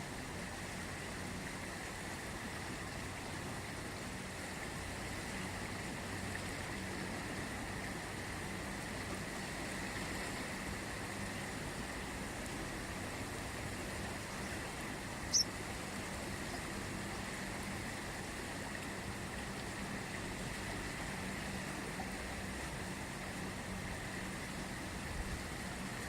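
The Ganges river flowing with a steady rush of water, a faint steady hum underneath and one brief high chirp about halfway through.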